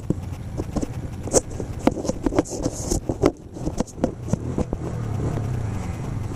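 A quad bike engine idling low, under frequent close knocks, scrapes and rustling.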